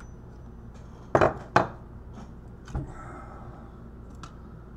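A steel chisel knocking against chips on a hard drive logic board, three sharp strikes in quick succession about a second in, then a lighter knock and a click. The components are not coming off easily because the chisel is dull.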